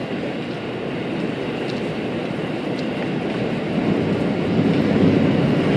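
Haruka limited express electric train running on the rails, a steady rumble of wheels on track, growing louder over the last two seconds.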